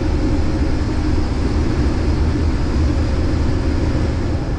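Case IH 2388 combine running steadily, heard from inside the cab: a loud, even machine drone with a deep rumble underneath.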